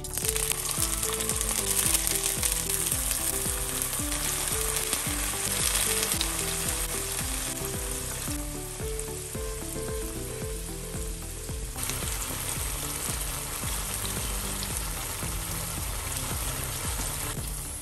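Firm tofu slices sizzling in hot oil in a nonstick frying pan, the sizzle starting abruptly as the first slices go in. It eases for a few seconds around the middle and picks up again, with a wooden spatula turning the slices near the end.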